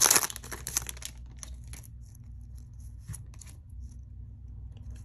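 Foil wrapper of a Pokémon card booster pack crinkling as the cards are slid out, loudest in the first half second, then thinning to a few scattered crackles and light ticks from the cards being handled. A steady low hum runs underneath.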